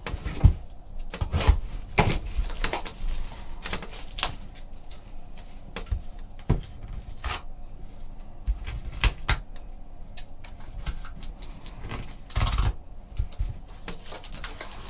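Trading cards in hard plastic holders and their packaging being handled and set down on a table: scattered clicks, knocks and rustles, with a louder clatter about twelve seconds in.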